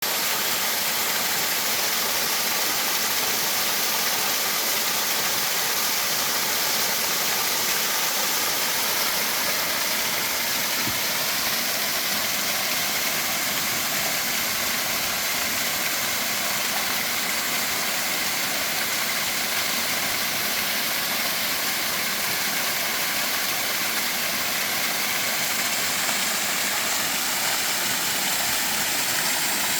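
Mountain stream rushing over rocks, a steady unbroken rush of water.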